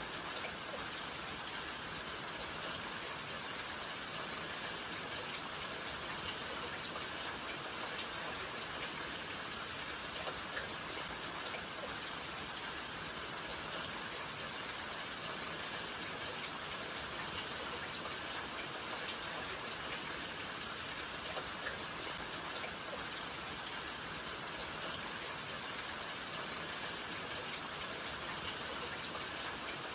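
Steady rain falling: a dense, even hiss with scattered single drops ticking through it.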